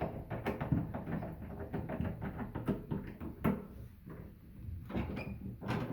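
Scattered clicks and light knocks of metal door hardware being handled: the knob and spindle of a mortise lockset being fitted and adjusted.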